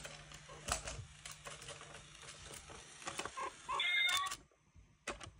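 Coin-stealing cat piggy bank toy clicking and knocking as a meerkat paws at it. About four seconds in comes a brief high-pitched meow-like tone.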